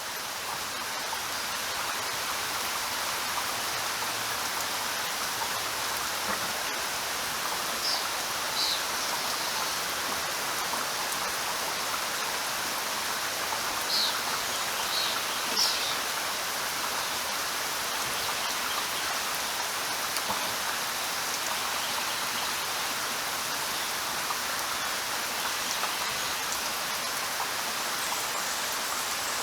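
Steady rain falling, with a few short bird chirps: a pair about a quarter of the way in and a few more about halfway through.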